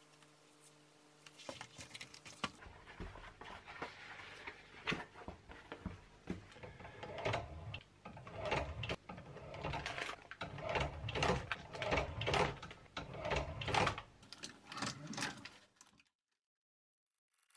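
Old industrial sewing machine stitching through a leather shoe upper, running in short runs of rapid stitches with brief pauses; it cuts off suddenly near the end.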